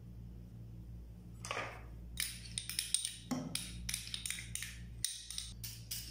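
A metal spoon scraping margarine out of a small plastic cup and clicking against it and the stainless steel mixing bowl. It is a quick, irregular run of clicks and scrapes that starts about a second and a half in.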